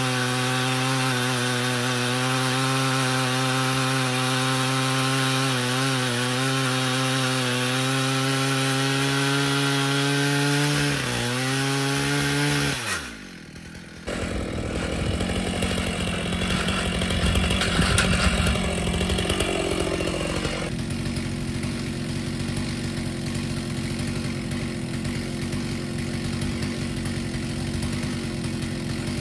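Chainsaw mill ripping a slab from an oak stump: the chainsaw engine runs at steady full revs under load in the cut, dipping once briefly, then its revs fall steeply and it drops away about thirteen seconds in. After a short lull a rougher, steady noise with no clear engine note carries on.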